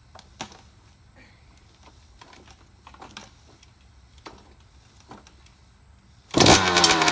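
A few faint clicks and knocks, then about six seconds in a KTM 105 SX single-cylinder two-stroke with its factory FMF exhaust fires up loudly on a cold start without choke, its pitch rising and falling as it is revved.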